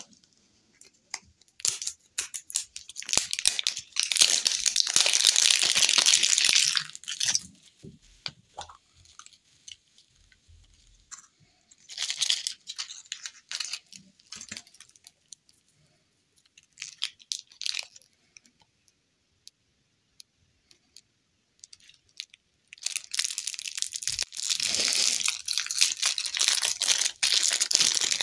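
Plastic candy wrapping and a small cellophane bag crinkling and tearing as they are unwrapped and opened by hand. It comes in bursts of a few seconds with quiet gaps between, the longest near the end.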